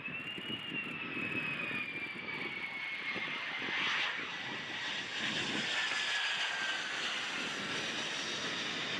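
F-35 fighter jet's F135 turbofan engine running, a high whine that slides slowly down in pitch over a rough, steady rumble.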